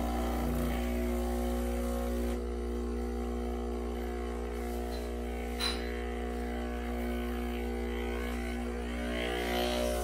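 Breville Duo Temp Pro espresso machine's vibratory pump buzzing steadily as it pushes water through the coffee puck to pull an espresso shot. It eases slightly about two seconds in, and there is one short click about halfway.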